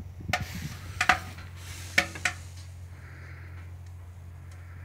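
Wood fire burning in a steel smoker's firebox during its first burn-out: a handful of sharp, irregular pops and clicks over a steady low hum, the loudest about two seconds in, with a brief hiss a little after three seconds.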